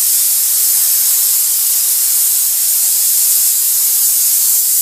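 Steam machine nozzle hissing steadily as it jets hot steam.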